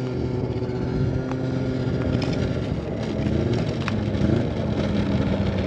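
A vehicle engine idling steadily, its pitch dropping a little about halfway through, with a few light clicks as the ice-fishing tip-up is handled.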